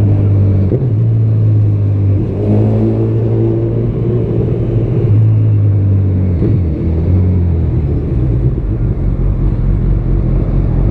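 Honda CB1000R inline-four with a Yoshimura exhaust running under way. Its steady hum shifts pitch a few times, then turns into a lower, rougher rumble in the second half.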